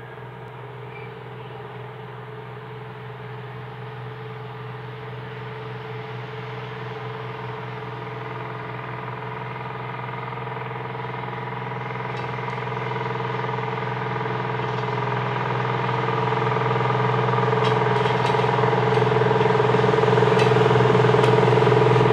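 Victorian Railways DERM 63RM diesel-electric rail motor approaching, its engine running with a steady hum that grows steadily louder as it nears. A few sharp clicks come in the second half.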